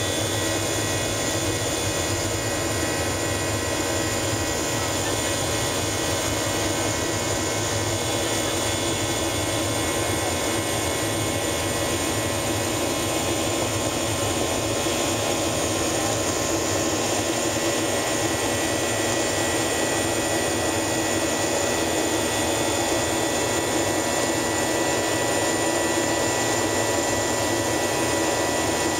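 Steady cabin noise inside a Boeing 737-800 climbing out after take-off: the CFM56-7B turbofans and the rushing airflow make an even hiss, with several faint steady whining tones over it.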